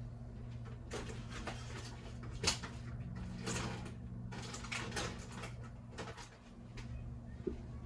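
Room tone: a steady low hum with scattered faint clicks and knocks, the sharpest a single knock about two and a half seconds in.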